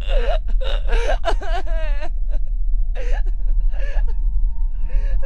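Wordless human vocalising over a steady low rumble: a burst of voice sounds at the start, a wavering held note about two seconds in, and shorter vocal bursts around three and four seconds in.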